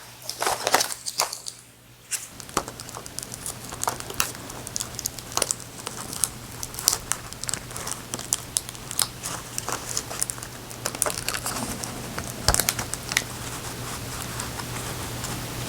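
Hands working on an opened Ford key fob and its CR2025 coin-cell batteries: a run of small clicks and crinkling. A steady low hum comes in about two seconds in.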